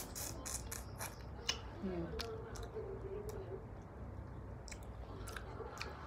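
Close-up chewing and sucking on a cooked shrimp head, with scattered wet mouth clicks and smacks.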